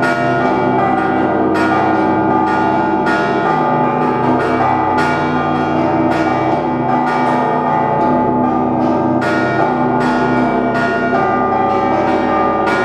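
Church bells of the Sofia Belfry rung in a continuous Russian Orthodox peal (zvon): many bells struck in quick, overlapping strokes over the steady ringing of the larger bells.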